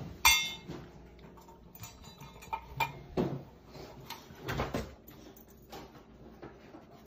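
Dry dog food tipped from a plastic scoop into a stainless steel dog bowl, a short ringing clatter just after the start. Then a small dog eats from the metal bowl, with scattered clicks and knocks.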